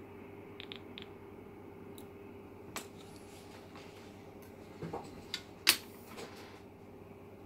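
A handful of small clicks and taps from soldering tools being handled at the workbench, the loudest a sharp tap a little past the middle, over a steady faint hum.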